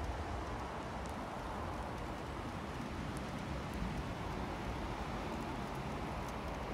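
Wind buffeting the microphone, a steady low rumble over even outdoor background noise. No alarm tone is sounding.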